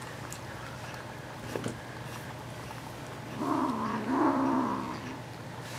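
A kitten's low, wavering yowl at a shared food bowl, about a second and a half long in two joined parts, starting a little past halfway: the sound of a kitten guarding its food from the others. A faint click comes early and a low steady hum runs underneath.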